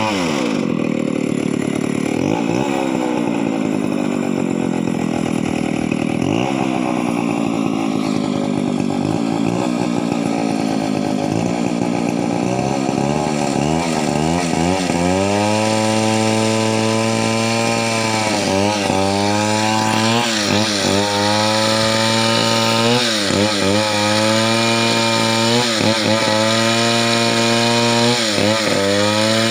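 Two-stroke chainsaw running: its pitch falls off at the start and wavers at lower speed for the first half, then it is held at high speed from about halfway, with brief dips in pitch several times.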